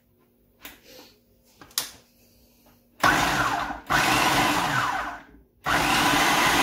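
Electric mini food chopper pulsed to coarsely chop onion chunks in its plastic bowl. After a few faint clicks, the motor runs in three pulses from about halfway through, its pitch sagging as the blade bites into the onion.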